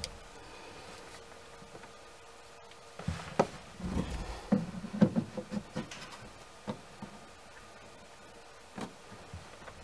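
Plastic inspection-port ring being set into its cut-out in a fiberglass deck and pressed down into its sealant. A cluster of light knocks and rubs starts about three seconds in, followed by two single taps.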